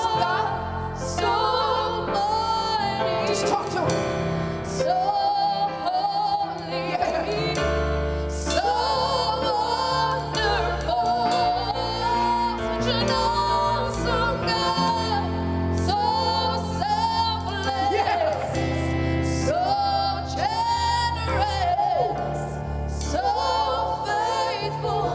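Gospel song: a solo voice singing a melody with vibrato over a band with bass and drums.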